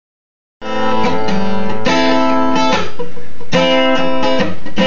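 Acoustic guitar strummed in ringing chords, the opening bars of a song before the singing comes in; the playing starts about half a second in.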